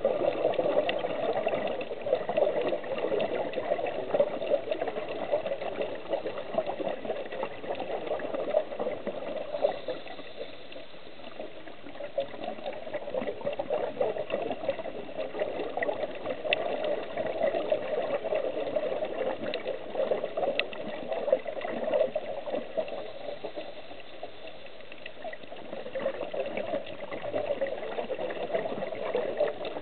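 Muffled underwater water noise with a bubbling, churning texture, dipping quieter twice, with a few faint sharp clicks.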